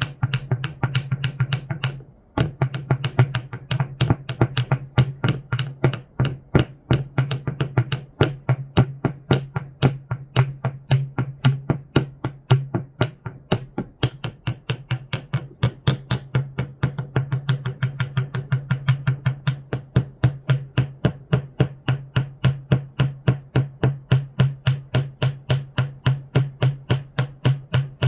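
Electronic noise music: a steady low drone under a fast, even train of sharp clicks, about three or four a second, with a brief drop-out about two seconds in.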